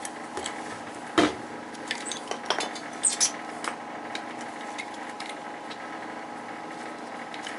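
Metal parts and tools clinking and knocking, a scatter of sharp taps over the first few seconds with one louder knock about a second in, over a steady hum.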